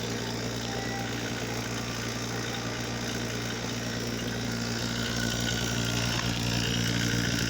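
Steady electric motor drone with a low mains-pitched hum, from the refrigeration equipment on the bench, growing a little louder about five seconds in.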